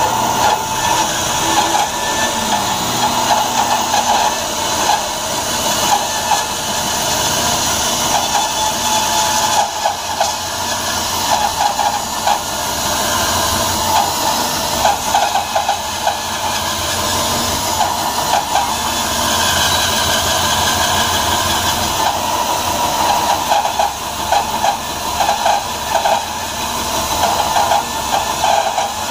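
Bandsaw resawing a thick block of cherry with a half-inch, 4-teeth-per-inch Timber Wolf blade: a steady hissing cut over the running saw, with a rapid flutter in the middle of the sound that comes and goes.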